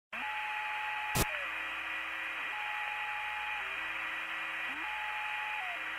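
Old-radio-style hiss with a faint tune of long held tones that step to a new pitch every second or two, and a single sharp click about a second in.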